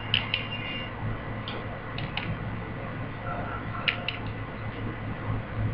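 Faint scattered taps and clicks of makeup being patted onto the face, over a steady low electrical hum.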